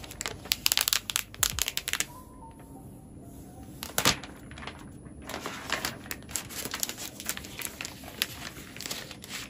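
Clear plastic protective film being peeled off the aluminium underside of a MacBook Air, crinkling and crackling. A sharp click comes about four seconds in, followed by steady crinkly rustling of the film and wrap as the laptop is handled.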